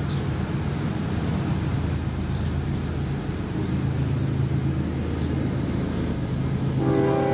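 Steady low engine drone, then near the end a locomotive air horn starts sounding a sustained multi-note chord as a train approaches the grade crossing.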